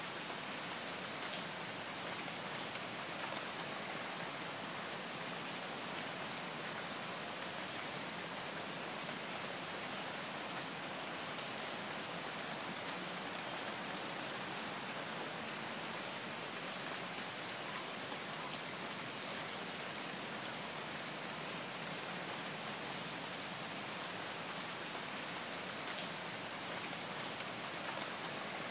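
Steady rain, an even, unbroken hiss of falling rain.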